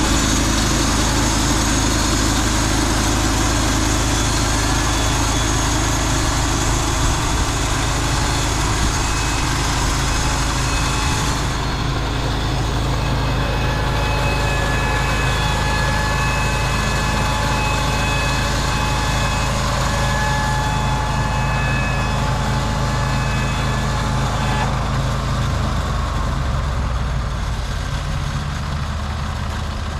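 Portable band sawmill running, its engine under load with a dense noisy sound until about 11 seconds in, when the high noise falls away. After that the engine keeps running with thin steady whining tones, and its pitch drops lower near the end.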